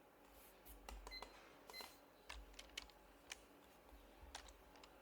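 Faint, scattered clicks of computer keyboard keys and mouse buttons at irregular spacing, with two short, faint beeps in the first two seconds.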